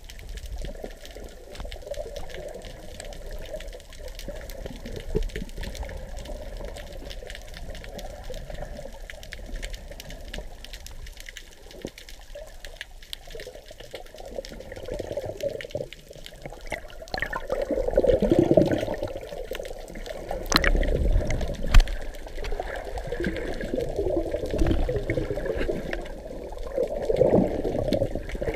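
Muffled underwater water noise heard through a submerged camera's housing, a steady rushing and sloshing as a freediver swims. It swells into louder surges about two-thirds of the way in and again near the end, with a couple of sharp clicks in between.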